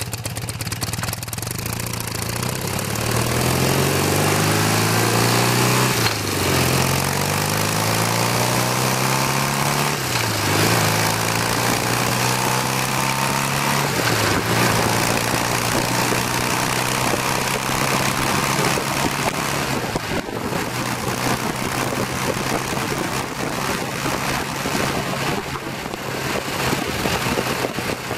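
1981 BMW R65's air-cooled flat-twin engine accelerating up through the gears: the engine note rises and drops back at each of three upshifts a few seconds apart, then holds steady at cruising speed. Heavy wind rush on the microphone throughout.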